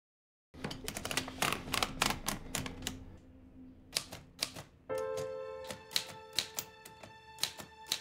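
Manual typewriter typed on in quick runs of clacking keystrokes, with a short lull about three seconds in. About five seconds in, music with held notes comes in under the keystrokes.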